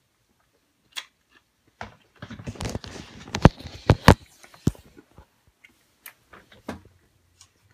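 Handling noise of the recording phone: rustling and sharp knocks as it is moved about, densest from about two seconds in to about five seconds, with scattered clicks before and after.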